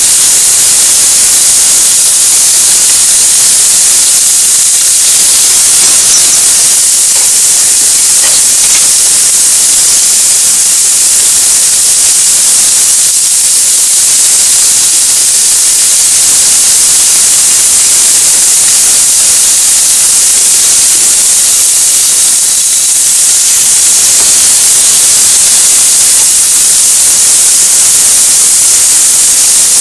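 Meat sizzling loudly in hot oil in a steel frying pan, a steady high hiss as it fries.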